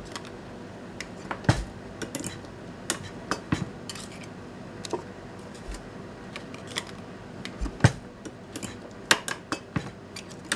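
Small hand-operated lever press and small sheet-metal parts clinking and clanking as the parts are set in and formed: irregular sharp metallic clicks, the loudest about a second and a half in and near eight seconds, over a steady workshop hum.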